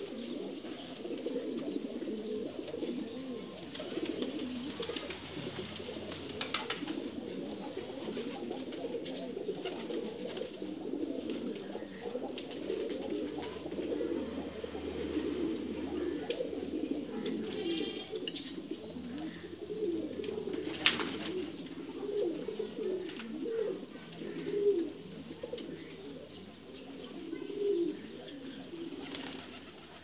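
A flock of domestic pigeons cooing continuously, many calls overlapping. A few sharp clicks cut in, the loudest about twenty seconds in.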